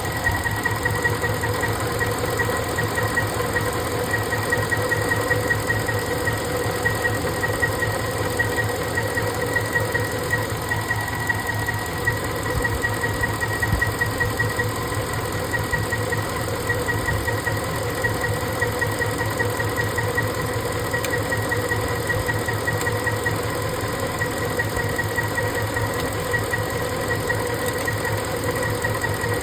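Ford 5.4-litre three-valve V8 running steadily at idle with a misfire, its firing pulsing quickly under a steady high whine.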